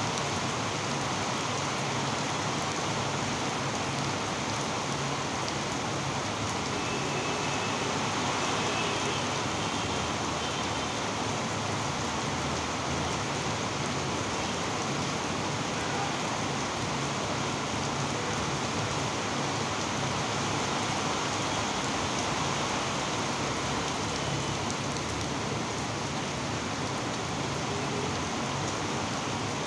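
Steady rain falling, an even wash of noise with no break.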